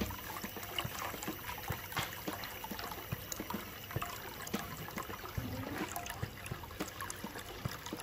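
Water trickling and splashing in a small bamboo-and-coconut-shell tabletop fountain, running steadily from spouts into the coconut shells and down into a ceramic basin. Many small splashes and drips sound over the flow.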